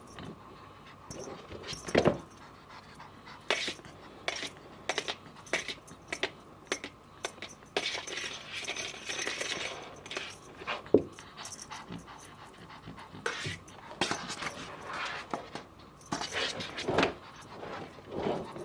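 Exotic kitten moving about at play: scattered light taps and knocks, with a stretch of rustling about eight seconds in.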